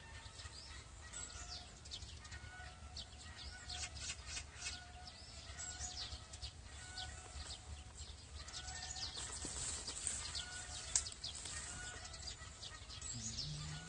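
Birds chirping outdoors, with many quick high chirps and a short call repeating about once a second, over a steady low rumble. A single sharp click sounds near the end.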